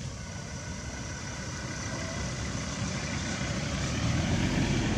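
Low rumble of a motor vehicle's engine, growing louder toward the end.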